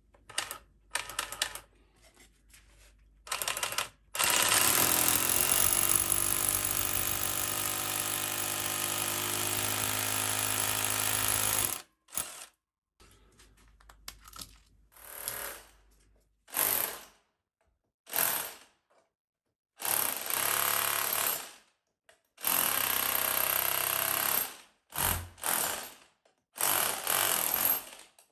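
Bosch UniversalHammer 18V cordless SDS-plus rotary hammer hammer-drilling: a few short starts, one long run of about eight seconds, then a string of shorter bursts with pauses between them.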